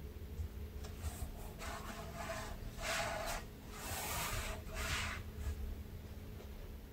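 Clothing and skin rustling and rubbing against a yoga mat as a person lying on the floor shifts her legs: a series of about five soft swishes over a few seconds, with a steady low room hum underneath.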